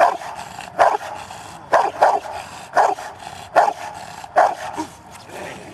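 Rottweiler barking up at a helper's jute bite pillow in protection training, about seven loud barks a little under a second apart, demanding the bite. The barks stop shortly before the end.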